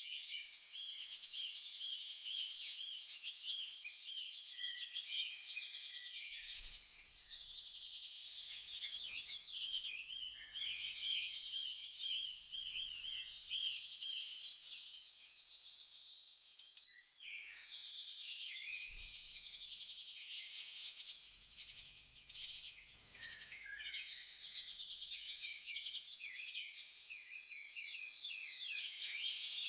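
Many small birds chirping and twittering at once, a dense run of quick overlapping calls with no pause.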